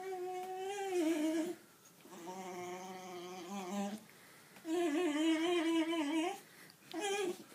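Golden cocker spaniel moaning in long, wavering, pitched complaints, three drawn-out ones and a short fourth near the end: her displeasure at being rubbed dry with a towel.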